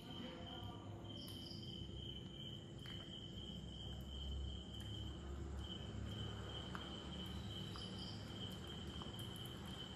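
A cricket trilling steadily on one high note, with a short break about five seconds in, over a low background rumble.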